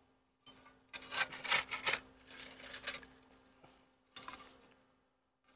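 Flat metal shovel scraping and pushing charcoal and ash across a steel fire ring, the coals crunching, in a few separate strokes with short pauses.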